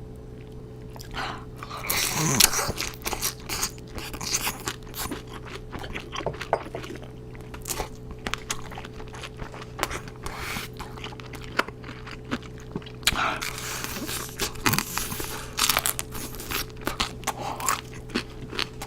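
Close-miked crunching and chewing of fried chicken dipped in garlic sauce: repeated crisp crackling bites and wet chewing, with a couple of longer noisy stretches, over a steady low hum.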